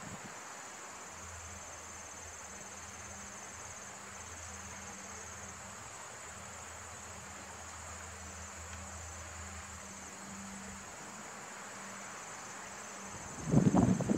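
Crickets chirring steadily in a high, finely pulsing trill. Near the end a sudden, much louder, rough low rumbling noise breaks in.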